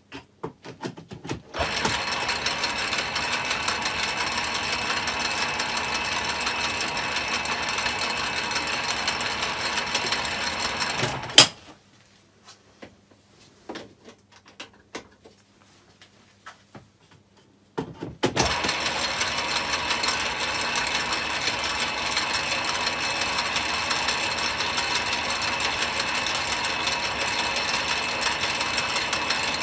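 Myford ML7 lathe running in back gear, a steady whirring mechanical sound with the gears meshing. It stops with a sharp clunk about eleven seconds in, a few quiet clicks follow, and it starts up and runs steadily again about eighteen seconds in.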